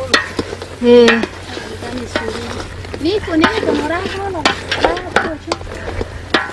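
Chunks of meat sizzling as they fry in an aluminium pot, stirred with a spatula that scrapes and knocks against the pot. Short pitched squeaky sounds come and go over it, the loudest about a second in.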